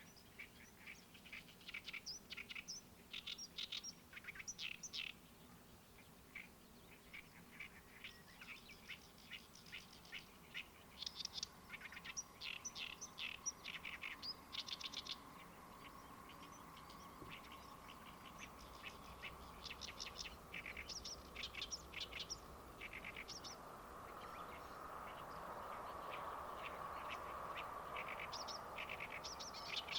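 Songbirds singing in quick runs of rapidly repeated high chirps, phrase after phrase with short gaps. A faint steady hum builds in the background over the second half.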